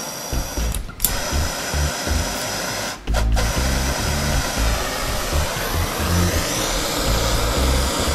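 Handheld propane torch burning with a steady hiss, its blue flame being brought to the hot end of a small Stirling engine's cylinder. A sharp click sounds about a second in.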